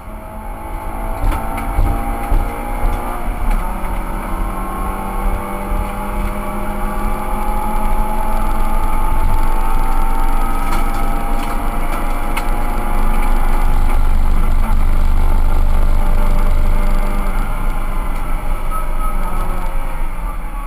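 Suzuki Swift cup race car's four-cylinder engine running hard under acceleration, its pitch rising slowly and the sound growing louder, loudest a little past the middle.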